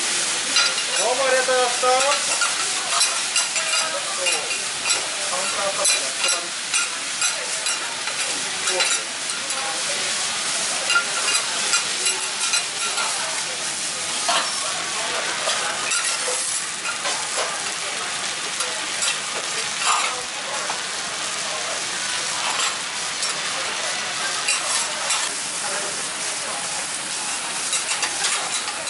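Food sizzling on a hot steel teppan griddle, with metal spatulas scraping and clicking against the plate again and again as an okonomiyaki is turned and the griddle worked.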